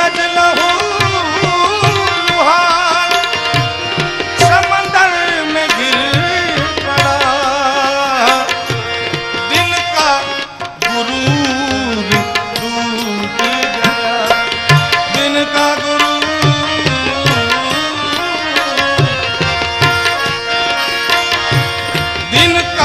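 Live Indian devotional music: tabla playing a steady rhythm under held harmonium chords, while a male voice sings a long, ornamented, wavering melody with no clear words.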